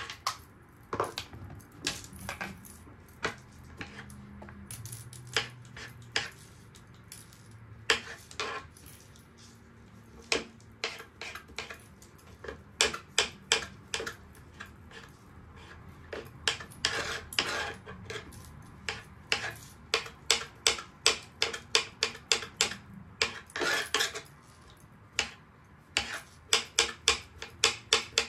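Kitchen knife chopping mushrooms on a cutting board: sharp taps of the blade hitting the board in short runs, about three a second near the end, with a few longer scraping sounds between runs.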